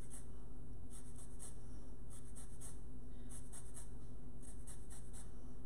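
Limes being zested on a hand-held adjustable rasp zester: short scratchy scraping strokes of rind over the blade, about two a second.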